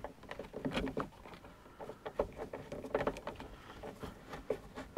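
Quiet scattered clicks and taps of a Phillips screwdriver turning a screw into a plastic dome light housing through the headliner, with hand-handling noise.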